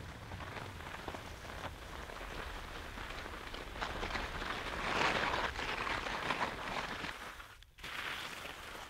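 Skis hissing and scraping over snow through a series of turns, grainy and crackling, loudest about halfway through.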